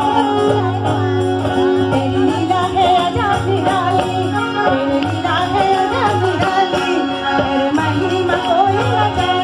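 Live devotional song through a PA: a woman singing into a microphone with a wavering, ornamented melody, accompanied by held keyboard notes, tabla and acoustic guitar.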